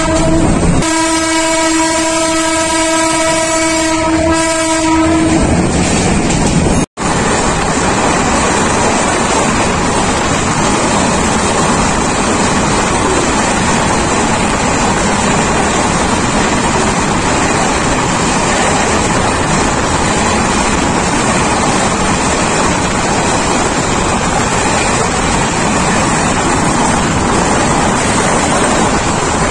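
A train horn sounds, held for about five seconds with a brief break just after it starts. After a sudden dropout about seven seconds in comes the steady rushing noise of a Bangladesh Railway commuter train running along the track, with wind on the microphone held outside the carriage window.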